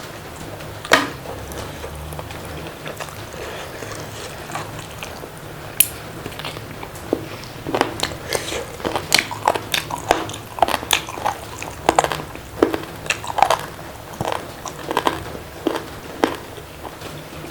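A person eating close to the microphone: crisp bites and crunchy chewing, a few isolated crunches at first, then coming quickly one after another from about halfway through.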